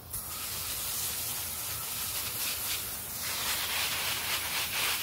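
Hand-held garden hose spray nozzle hissing steadily as it sprays a fine shower of water over plants. The sound thins a little about three seconds in.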